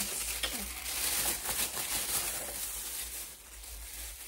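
Thin clear disposable plastic glove crinkling and rustling as it is pulled on over a hand, a continuous run of crackles that eases off near the end.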